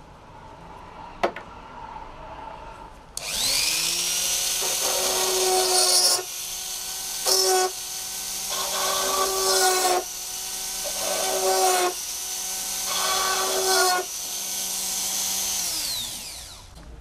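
Small brushless electric motor for a model aircraft spinning up with a rising whine, running with a steady high whine that surges louder several times, then winding down with a falling pitch near the end. A single sharp click comes about a second in.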